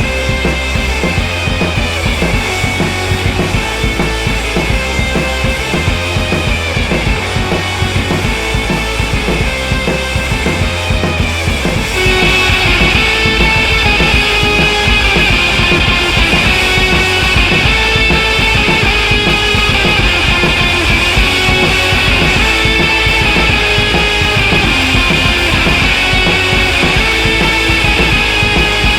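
Background rock music with a steady drum beat and electric guitar, getting louder about twelve seconds in.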